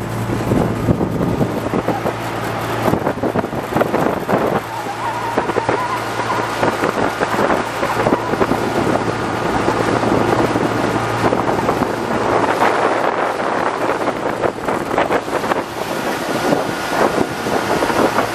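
Small fishing boat's engine running steadily under way at speed, with water rushing along the hull and wind buffeting the microphone.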